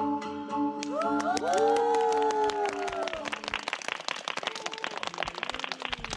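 Small audience clapping and cheering, with several rising 'woo' calls about a second in, as the last held notes of the show's music fade out.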